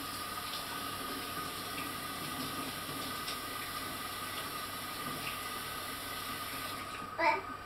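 Steady rushing hiss with a faint steady whine under it, which changes character near the end.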